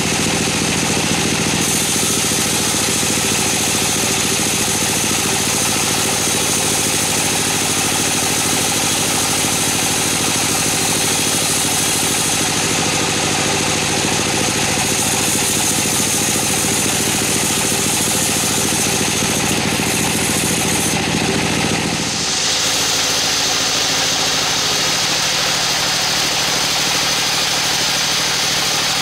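Band sawmill running steadily, its blade sawing through a teak log, with the continuous hum of the mill's drive. The sound changes abruptly about 22 seconds in.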